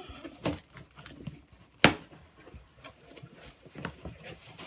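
Cardboard box being opened by hand: scattered knocks, scrapes and flap noises, with one loud sharp click about two seconds in.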